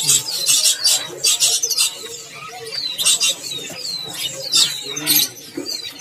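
Caged small songbirds chirping busily: rapid clusters of high, sharp chirps mixed with short falling whistles, repeating every second or so.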